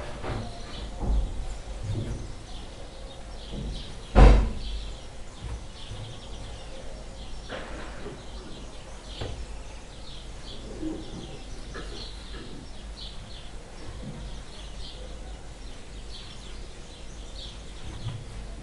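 Small birds chirping in short, scattered calls in the background, with one sharp, loud knock about four seconds in and a few softer knocks near the start.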